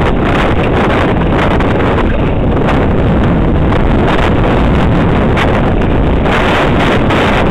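Heavy wind noise buffeting the camera microphone of a mountain bike descending a dirt downhill trail, mixed with rumble and irregular jolts from the tyres and bike over the rough ground.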